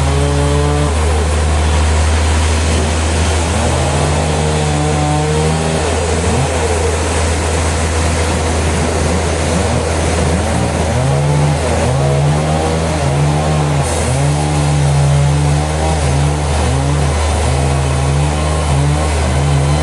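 Sawmill machinery running: a steady low hum, with a motor tone that rises and falls.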